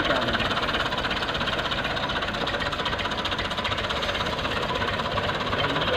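Tractor diesel engine running steadily with an even, rapid chug, its PTO coupled by a long driveshaft to a tubewell pump.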